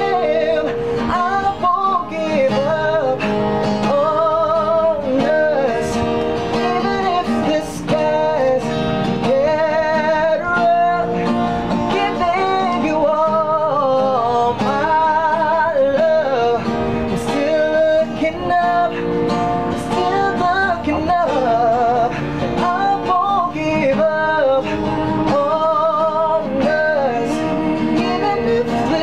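Music: a voice singing a pop love song over acoustic guitar, with long held notes.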